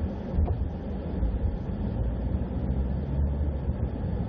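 Steady low rumble of a vehicle travelling along a road.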